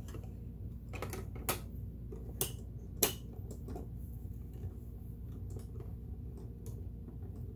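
Light clicks and taps of the embroidery presser foot being fitted and handled on a Janome Memory Craft 8000 sewing machine. There are four sharper clicks in the first three seconds, the last the loudest, then fainter ticks over a steady low hum.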